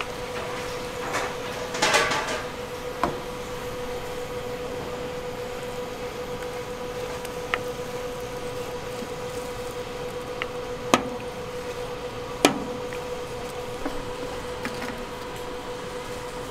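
A metal ladle working sauce over skewered fish cakes in a steel tray: scattered sharp clinks and taps, with a small cluster early and two louder knocks in the second half, over a steady hum.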